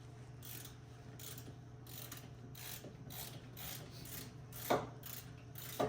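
Ratchet wrench clicking at about two to three clicks a second while loosening brake caliper bolts, with two sharper metal knocks near the end.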